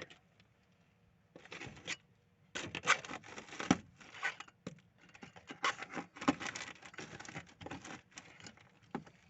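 Rust-rotted car body metal being poked and scraped: irregular crackling scrapes and taps as flaking rust crumbles, the sign of metal rotted right through. It starts about a second and a half in and goes on in uneven clusters.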